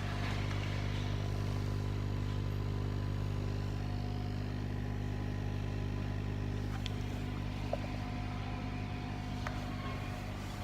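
Laser cutting machine and its water chiller running: a steady mechanical hum made of several constant low tones. A faint higher tone joins about four seconds in, with a few light clicks.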